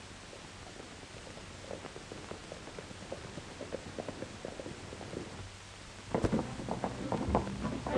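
Horses' hooves clopping on dirt as riders come closer, the knocks growing louder over the hiss of an old film soundtrack. About six seconds in, loud orchestral music with brass cuts in.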